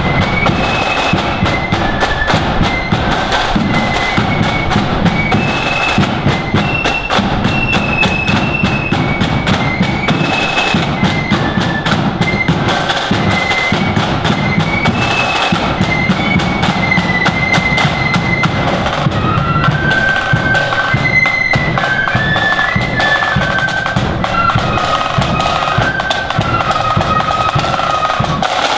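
Marching flute band playing a tune: a high flute melody over rapid snare-drum rolls and a steady bass drum. About two-thirds of the way through, the melody drops to a lower register.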